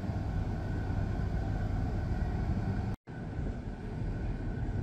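Steady low rumble of a fishing vessel's diesel engine idling in the lock chamber, with a faint steady whine above it. The sound cuts out for an instant about three seconds in.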